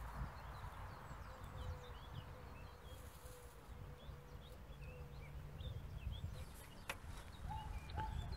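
Faint birds chirping in short scattered calls over a low rumble, with a few sharp clicks near the end.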